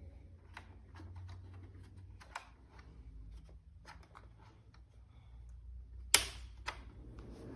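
Irregular light plastic clicks and taps from handling the opened space heater's housing and loose fan parts, with one sharper, louder click about six seconds in.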